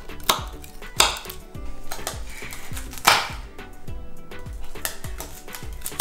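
Chef's knife cutting through thin, crisp sesame-and-jaggery brittle, which snaps with three sharp crunches in the first three seconds and another at the end, over background music with a steady beat.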